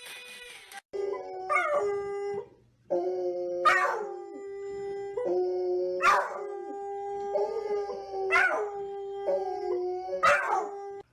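Dogs howling: long, steady howled notes with sharp rising cries about every two and a half seconds, after a second of background music.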